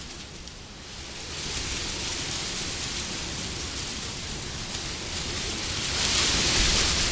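Wind blowing in gusts: it eases off about half a second in, builds back, then swells into a stronger gust near the end.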